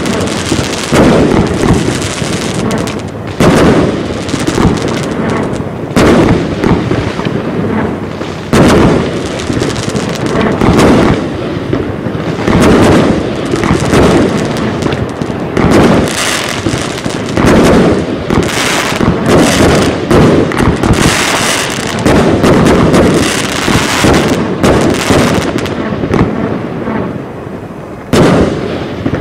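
Heron Cake 456 firework cake box (a 178-shot compound cake, up to 30 mm calibre) firing in a continuous sequence: shot after shot of aerial bursts with dense crackle between them, the loudest reports coming every two to three seconds.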